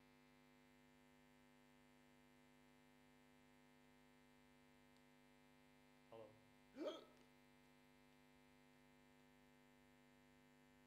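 Near silence with a steady electrical mains hum. About six seconds in, two short vocal sounds from a person break it, the second rising in pitch.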